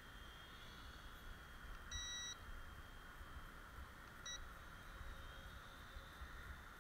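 Two electronic beeps from a toy quadcopter's radio transmitter, a short half-second one about two seconds in and a briefer one a little after four seconds, over the faint steady high whine of the quadcopter's small motors overhead.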